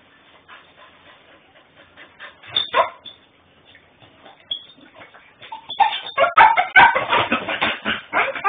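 Puppy whining and yipping: faint whimpers at first, one sharp loud cry about a third of the way in, then a long stretch of loud, rapid whines and yips in the second half.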